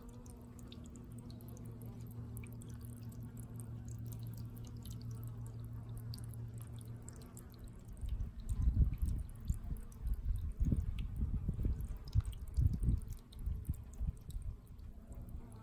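Faint dripping and trickling of pond water over a steady low hum. About halfway through, irregular low rumbling buffets on the microphone take over as the loudest sound for several seconds.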